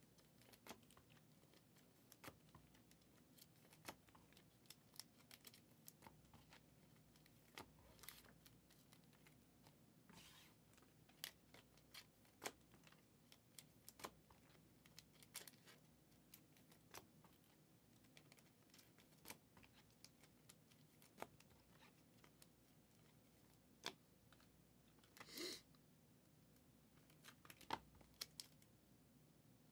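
Near silence with faint scattered clicks and short rustles from handling trading cards and their cello pack wrappers, the longest rustle near the end.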